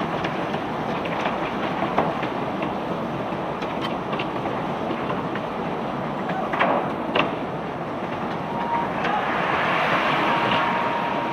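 White limestone rock flowing out of a barge during unloading: a steady rumbling clatter of stone, with a sharp knock of rock striking about two seconds in and two more a little past the middle. It swells briefly near the end.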